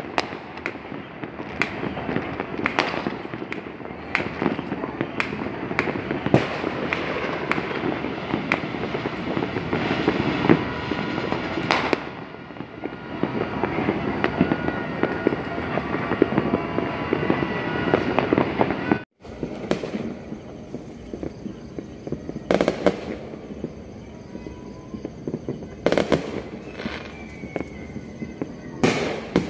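Fireworks and firecrackers going off all across a city: a dense, continuous crackle of distant pops and bangs. About two-thirds of the way through it cuts out for a moment and gives way to quieter, sparser single bangs.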